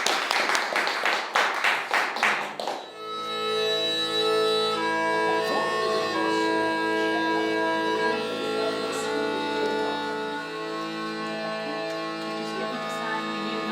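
Hand clapping for about three seconds, then an abrupt change to instrumental music of sustained, held notes over a low drone.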